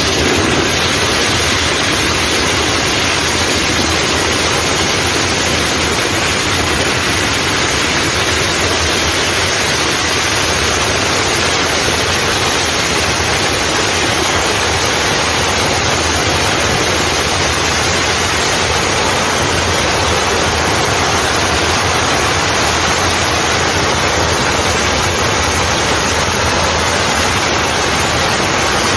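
A steady, loud rushing hiss with no bangs or pops.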